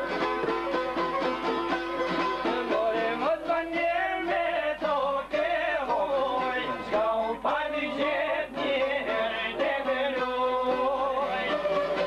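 Albanian folk music: plucked long-necked çifteli strings playing steady ringing notes, joined about three seconds in by a man's voice singing a wavering, ornamented melody.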